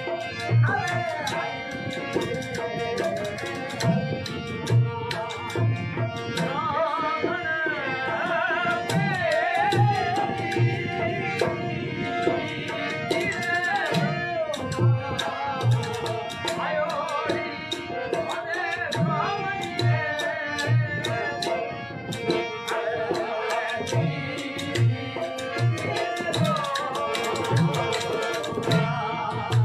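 Rajasthani Manganiyar folk music: men singing over a harmonium, with a dholak drum beating a steady low rhythm throughout. Sharp clicks sound over the top.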